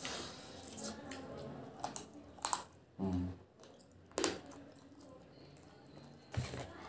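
Close-up eating sounds of chicken being chewed and picked at with the fingers: a few sharp wet clicks and lip smacks, with a short low hum about three seconds in. Near the end comes a dull knock as a glass tumbler is set down on the table.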